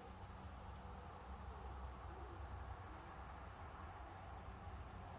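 Steady, high-pitched chorus of summer insects droning without a break, with a faint low rumble beneath.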